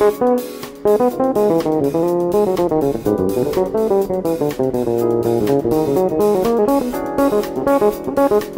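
Six-string electric bass playing a solo: a fast, continuous run of plucked notes with sharp attacks.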